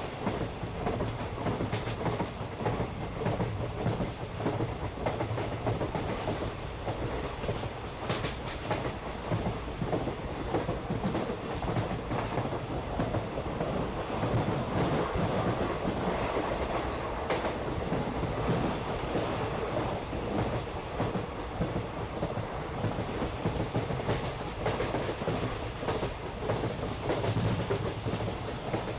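Park toy train running along its track, a steady rumble with the wheels clacking over the rail joints.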